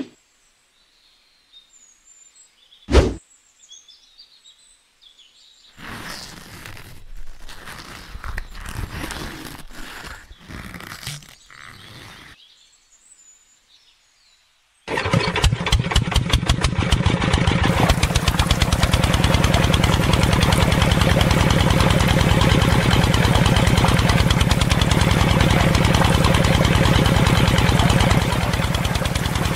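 A single thump about three seconds in and some handling clatter, then a miniature model stationary engine, pull-started with a cord, catches about halfway through and runs steadily with a fast, even beat.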